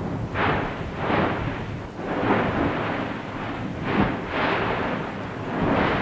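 Nyamulagira volcano erupting: the vent roars and blasts in a series of explosive surges, five or six of them, irregularly spaced about a second apart, each swelling and fading over half a second or so.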